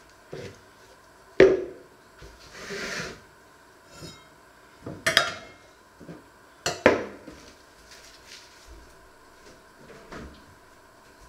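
Kitchen items being handled and set down on a wooden worktop: a string of knocks and clatters, the loudest about a second and a half in and again around five and seven seconds, with a short rushing sound around three seconds in and a quick run of light ticks at about four seconds.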